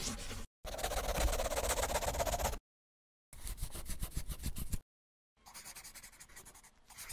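Scribbling sound effect of a marker drawing: four bursts of fast, scratchy strokes, the first very short and the others a second or two long, with brief silent pauses between.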